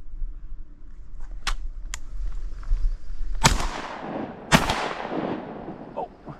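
Shotgun fired twice about a second apart at a flock of wood ducks, each blast trailing off in a long wash of noise. Two faint sharp clicks come about a second and a half earlier.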